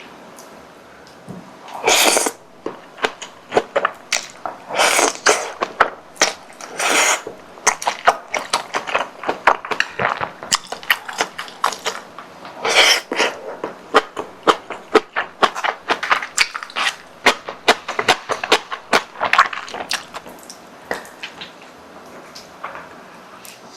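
Close-miked eating of spicy tteokbokki: wet chewing with dense, irregular mouth clicks, broken by a few short breathy sounds.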